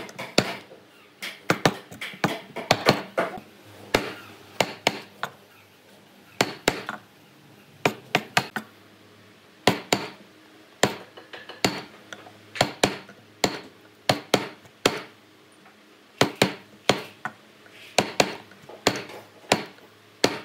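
Wooden mallet striking the handle of a steel chisel to chop square mortises in a wooden block. Sharp knocks come in short runs of a few blows with brief pauses between them.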